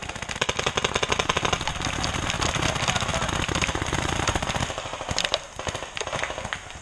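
Paintball markers firing rapid strings of shots, many pops in quick succession, thinning to scattered single shots about two-thirds of the way through.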